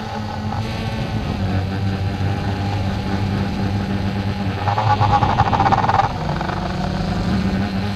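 DJI Phantom 2 quadcopter's electric motors and propellers humming steadily, heard from the camera carried beneath it. Just past the middle, the sound grows louder and higher-pitched for about a second.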